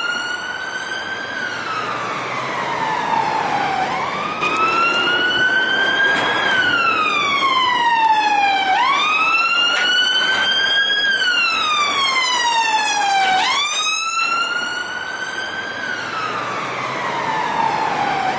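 London police car siren sounding its wail: a pitch that sweeps up quickly and then slides slowly back down, repeating about every four and a half seconds.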